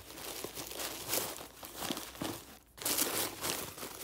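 Tissue paper crinkling and rustling as hands rummage through a box and handle a satin drawstring pouch, with a brief lull a little over halfway through before the rustling picks up again.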